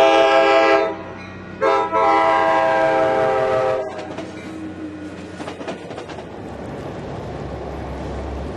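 Diesel commuter locomotive's multi-note air horn: one blast ending about a second in, then a second blast of about two seconds as the locomotive and bilevel coaches pass the crossing. Then the coaches roll by on the rails, followed by the low rumble of a train approaching.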